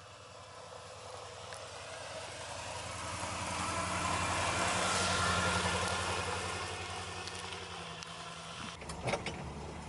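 1982 Dodge Power Ram W250's 318 V8 running steadily as the truck plows snow, under a rush of snow and tyre noise that swells to a peak about halfway through and then fades. A few sharp knocks near the end.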